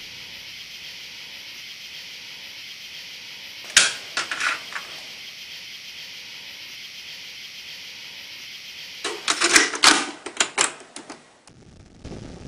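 Plastic clicks and clatter of a cassette tape being handled and loaded into a stereo cassette deck: a sharp click about four seconds in, then a quick run of clicks and rattles near the end. A steady hiss underneath cuts off just before the end.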